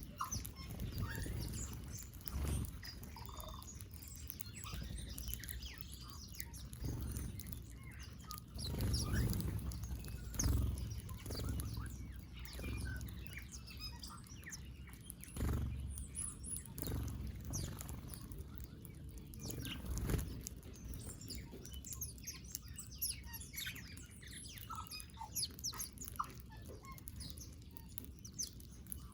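Small birds chirping and twittering in short, scattered calls while feeding, with several soft low thumps and flutters mixed in.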